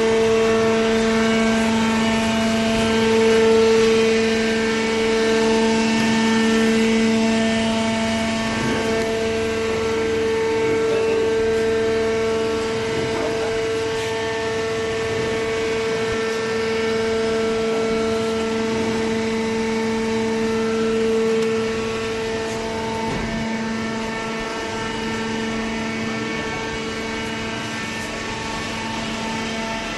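Hydraulic paper baler's motor and pump running with a steady humming whine. The higher tone drops away and the hum gets a little quieter about three quarters of the way through.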